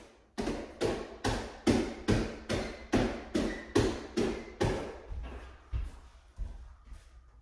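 Quick, even run of taps or slaps, a little over two a second and about fifteen in all, from hands or feet striking the floor during a bodyweight exercise done at pace; they grow weaker about five seconds in.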